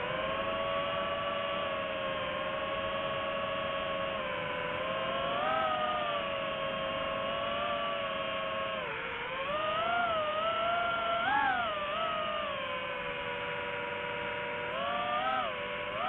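Multirotor drone's motors and propellers whining steadily, heard close from the drone itself; the pitch swings up and down briefly about five seconds in and again several times around ten to twelve seconds in as the throttle changes.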